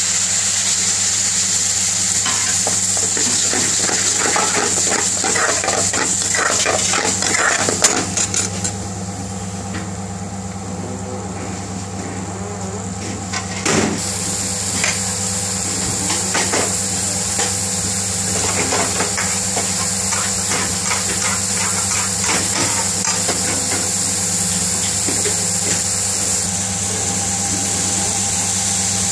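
Chickpea curry in base gravy sizzling in a steel frying pan, with a metal spoon scraping and clinking against the pan as it is stirred. The stirring stops for a few seconds about a third of the way in, then starts again, over a steady low hum.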